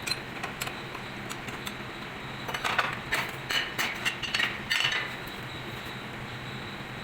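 Sharp metallic clinks and clatter, bunched in the middle, over a steady machine hum.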